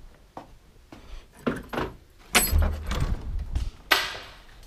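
Jangling, clattering handling noise and footsteps while walking through a doorway, with a sharp door knock near the end.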